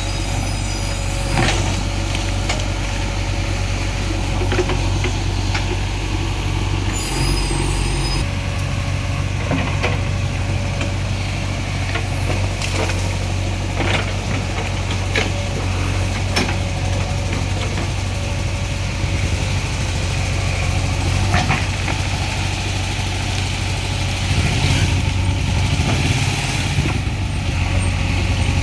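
JCB 3DX backhoe loader's diesel engine running steadily under work, with scattered sharp knocks. The engine note drops about eight seconds in and grows louder near the end.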